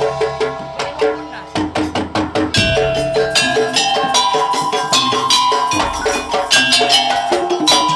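Madurese musik daul (tong-tong) ensemble playing: drums and struck, pitched percussion in a fast, steady rhythm.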